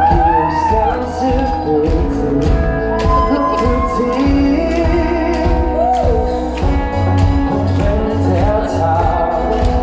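Live schlager pop song played at a concert: a sung melody over a band with steady bass notes and a regular beat, ringing in a large hall.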